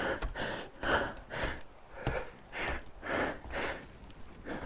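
A man breathing hard in quick, regular puffs, about two a second, out of breath from climbing a long flight of steps.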